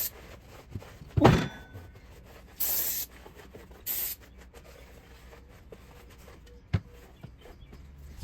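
A sharp knock, then two short bursts of spraying hiss, and a small click near the end, heard while the cylinder head and block are being readied for the head gasket.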